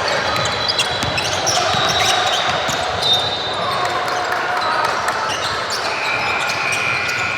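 Basketball dribbled on a hardwood gym floor, with voices of players and spectators echoing in the gym.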